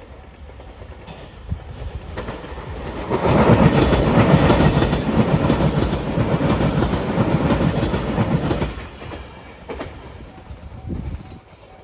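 Five-car Shiokaze limited-express electric train passing over a level crossing: it builds over about two seconds, stays loud for about five seconds as the cars go by, then drops away sharply.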